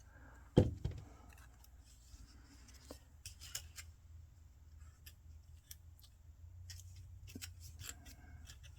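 A single thump about half a second in, then scattered small crisp clicks and paper rustles as cardstock pieces are handled and placed on the box.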